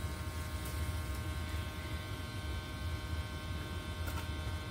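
Chainsaw running at a steady speed while cutting a branch: an even, unbroken buzz.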